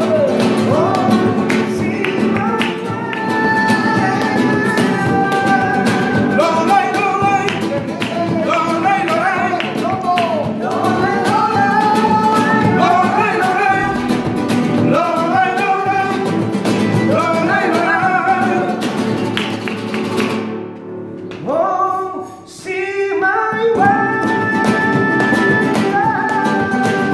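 Live flamenco: a man sings with a wavering, ornamented voice over two flamenco guitars, strummed and picked, with handclaps (palmas) keeping the rhythm. The music dips briefly about twenty-one seconds in, then the voice and guitars come back.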